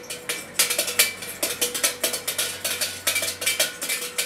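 Small metal bells shaken by hand, their clappers striking rapidly and irregularly, several times a second, over a steady ringing tone.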